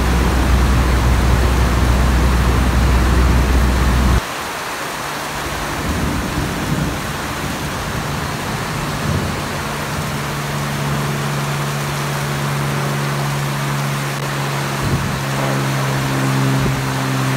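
Steady rain hiss with a droning propeller-aircraft engine. The deep engine drone cuts off abruptly about four seconds in, leaving rain and low rumbles of thunder, and a higher-pitched engine drone builds up in the second half.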